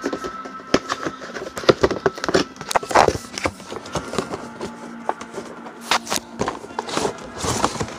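Irregular clicks, taps and rustles of hard plastic gear and cables being handled close to the microphone.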